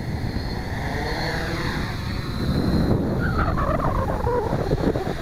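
Tarot 680 Pro hexacopter's six motors and propellers running as it lifts off and climbs, under a heavy rumble of wind buffeting the microphone. From about three seconds in, a warbling flutter that sounds like a pigeon or loose propellers but is wind on the microphone.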